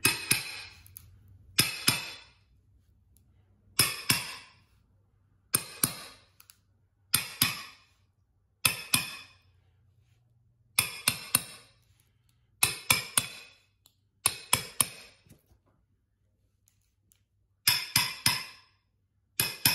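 Hammer tapping a carpet edge down into the gap along the tack strip at the tile: sharp metallic clinking taps in groups of one to three, every second or two, each ringing briefly.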